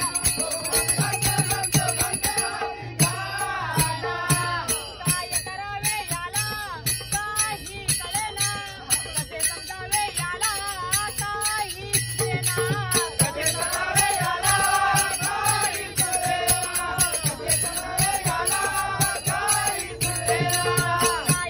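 Men singing a Marathi gavlan bhajan together, with taal (small brass hand cymbals) ringing a fast, steady beat.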